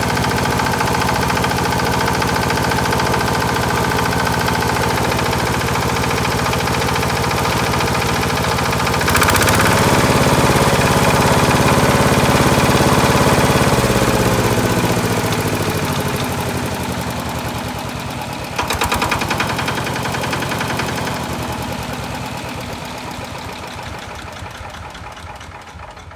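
Yanmar YC90-G walk-behind tiller's 9-horsepower diesel engine running steadily. About nine seconds in it turns louder and deeper for some five seconds, then slowly fades.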